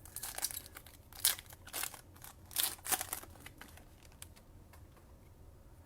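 Paper-and-plastic rustling of a trading card pack being opened and its cards handled: a string of short scratchy crinkles over the first three seconds, then quieter.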